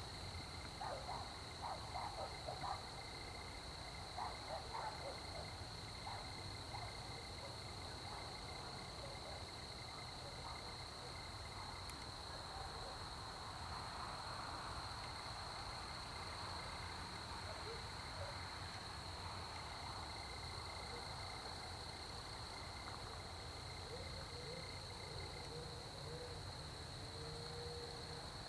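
Faint night chorus outdoors: a steady, unbroken high-pitched insect trill, with a few short faint calls in the first few seconds and faint low hooting calls near the end.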